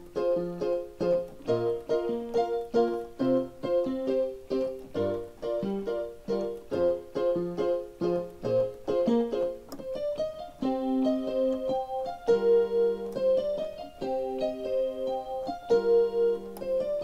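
Keyboard with a piano sound playing an instrumental intro with no singing. It starts with short repeated notes and chords in a steady rhythm, and about ten seconds in moves to longer held chords.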